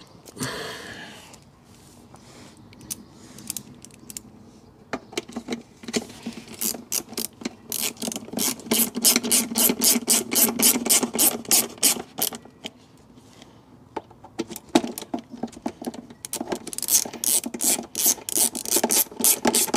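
Ratchet screwdriver clicking in quick runs as screws are driven into a plastic air box to fix a mass airflow sensor. The clicking starts about five seconds in, eases off briefly in the middle and picks up again near the end.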